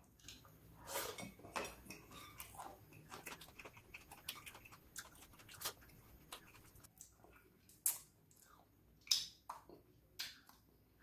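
Close-miked chewing of crispy fried anchovies, a faint run of small crisp crunches. A few louder mouth smacks come near the end as the fingers are licked.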